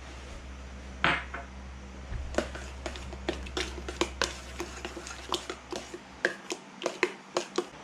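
A kitchen utensil clinking against a dish: one louder knock about a second in, then a run of sharp clicks, roughly three a second.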